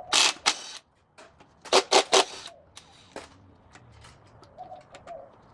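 Sharp metal clanks and knocks of tools on engine parts while a connecting-rod cap is being freed on a Ford 4.6 three-valve V8 short block: two strikes at the start, a quick run of three about two seconds in, one more shortly after, then light ticks.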